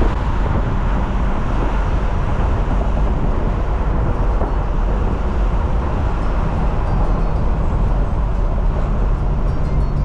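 Steady road and engine noise of a BMW 340i driving, heard inside the cabin as a continuous low rumble.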